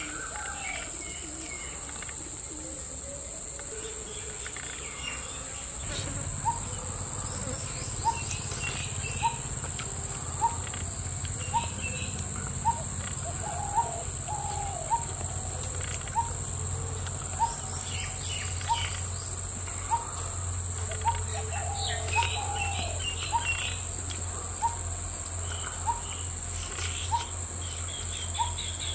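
Rural outdoor ambience: a steady, high-pitched insect drone, with a bird repeating a short note about once a second from about six seconds in, and other scattered bird chirps.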